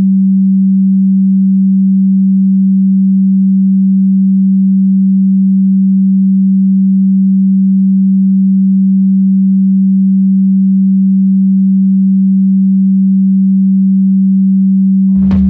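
A single low, steady pure sine tone held at one pitch, used as a 'frequency' in an energy-healing audio track. Right at the end, music with struck, ringing sounds comes in over it.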